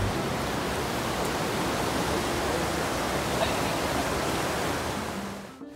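River water rushing over shallow rapids and limestone ledges, a steady rush that drops out suddenly near the end.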